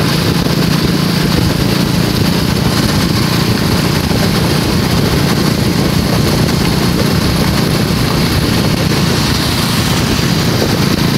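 An engine running steadily with a constant low hum, at an even load throughout.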